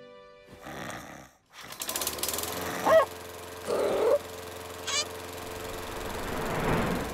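Cartoon lawn mower engine starting up about a second and a half in and running with a steady rattle that grows slightly louder. A few short squeaky vocal sounds break in over it.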